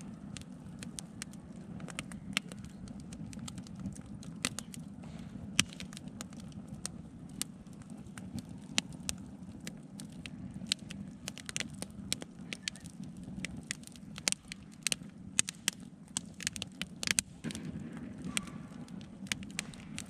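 Wood fire burning in a steel fire ring, crackling with irregular sharp pops, over a steady low background rumble.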